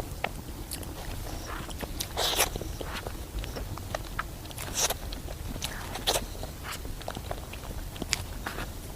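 Close-miked eating of chocolate mousse cake: soft chewing with wet mouth clicks and lip smacks, and a few louder smacks, the loudest about two seconds in.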